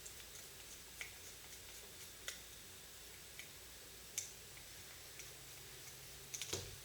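Faint, scattered small clicks and taps of a Torx screwdriver and tiny screws as the pocket clip is unscrewed from a folding knife, with a quick cluster of clicks near the end.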